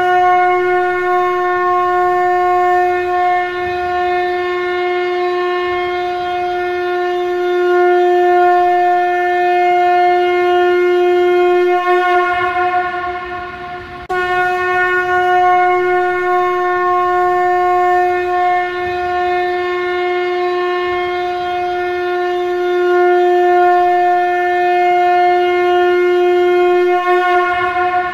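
Shankha, a Hindu ritual conch-shell trumpet, blown in two long held blasts on one steady pitch, each about thirteen seconds. The first fades out and the next begins after a gap of under two seconds.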